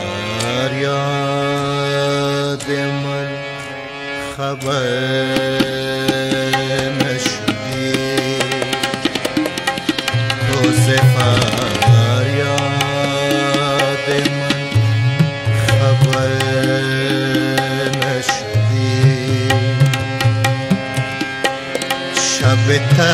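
Harmonium and tabla playing an instrumental passage of an Afghan ghazal. The harmonium holds sustained reedy notes and melody over steady tabla strokes, with deep swelling bass-drum tones that come and go.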